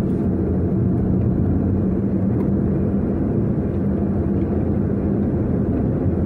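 Engine and tyre noise of a moving car: a steady low rumble with a steady hum.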